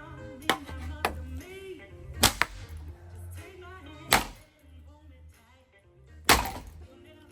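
Sharp cracks and knocks as a ceiling fan is struck and broken: about six hits, the loudest about two, four and six seconds in. Music plays underneath.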